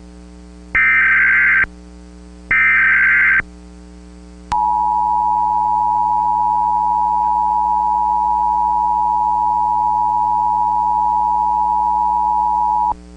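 Emergency Alert System SAME header: two short, harsh digital data bursts about a second apart, then after a gap the EAS attention signal, a loud steady alarm tone held for about eight seconds that cuts off sharply. A constant low electrical hum runs underneath.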